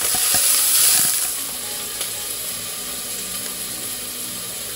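Food sizzling in a frying pan on the stove, with a few sharp clicks in the first half-second. The sizzle is loudest at first and eases after about a second and a half into a softer, steady hiss.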